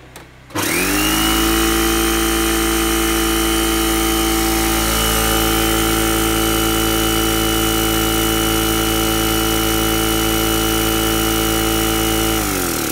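Anest Iwata FX2200 portable electric air compressor starting up about half a second in and running steadily at a constant pitch, then winding down just before the end. It is building tank pressure quite slowly, which the owner puts down to leaky seals that need re-tightening.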